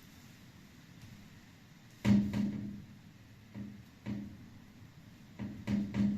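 A series of irregular knocks and thumps with a hollow, low ring. The loudest comes about two seconds in, and three more follow in quick succession near the end.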